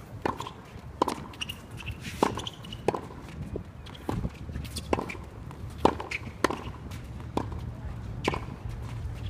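Tennis balls struck by racquets in a fast net volley exchange: a series of sharp pops, roughly one a second, some louder than others.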